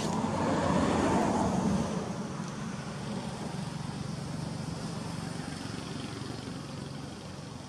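A motor engine running close by, louder in the first two seconds and then easing to a steady low hum.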